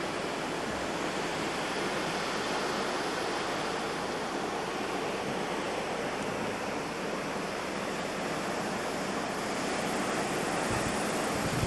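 Blizzard wind blowing hard and steadily, a gale the speaker puts at about 65 miles an hour, rising a little near the end with gusts buffeting the microphone.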